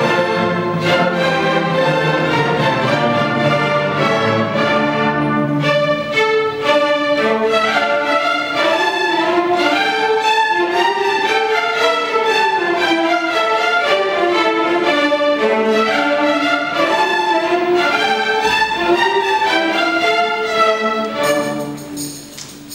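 A student orchestra playing, with violins to the fore over the other strings and the rest of the orchestra. The music falls away sharply about a second before the end.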